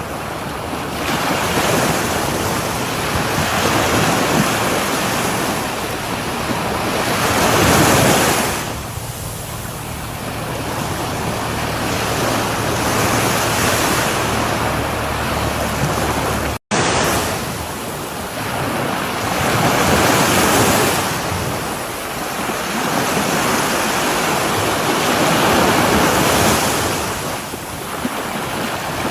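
Sea waves breaking and washing up a shore, a steady rush of surf that swells and falls back every several seconds. The sound drops out for a split second about halfway through.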